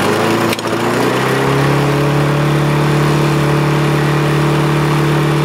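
Briggs & Stratton single-cylinder lawn mower engine just pull-started, its revs rising over the first second or so and then holding steady at a high, fast run. It is running too fast, which the owner puts down to governor springs and a governor flap clogged with dirt and not moving freely.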